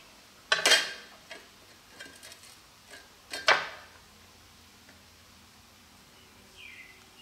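Thin stamped-steel clutch plates and friction discs of a six-disc wet clutch clanking against each other and the clutch hub as they are stacked into the pack: two sharp metallic clanks about three seconds apart, with lighter clinks between.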